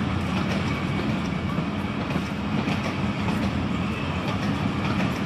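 Passenger train coaches rolling past as the express pulls out of the station: a steady rumble of wheels on the rails with faint clicking.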